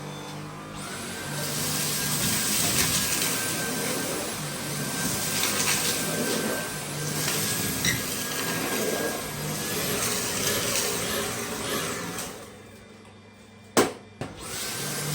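Dyson V8 cordless stick vacuum's motor spinning up with a rising whine about a second in, then running with a steady high whine over rushing air. It cuts out near the end, followed by a sharp click, and spins up again just before the end.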